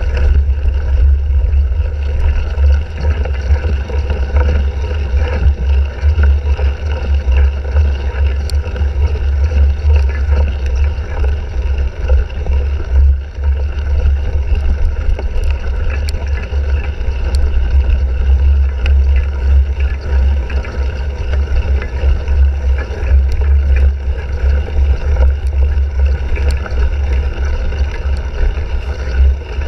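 Loud wind rumble on a handlebar-mounted GoPro's microphone while a cyclocross bike is ridden at race speed, with scattered clicks and rattles from the bike over rough ground.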